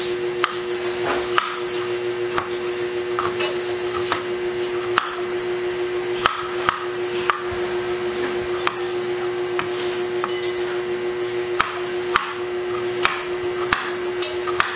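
Kitchen knife slicing garlic cloves on a plastic cutting board: irregular sharp taps of the blade on the board, about one or two a second, over a steady hum.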